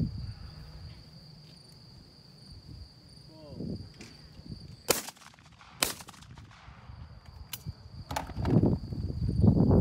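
Two shotgun shots about a second apart, a clay shooter firing at a pair of clay targets. Men's voices follow near the end.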